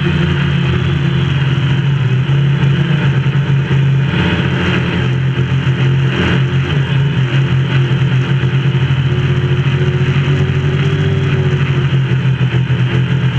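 DJI Phantom quadcopter's motors and propellers running steadily in flight, picked up by the GoPro on the drone itself: a loud, even hum with a buzzing hiss over it and only slight changes in pitch.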